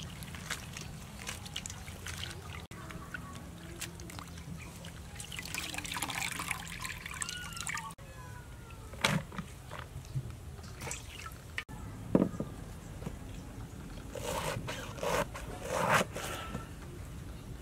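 Hands swishing enoki mushrooms through water in a steel bowl, with splashing and trickling. After a few scattered knocks, a cleaver cuts through a napa cabbage on a wooden chopping board, several sharp strokes near the end.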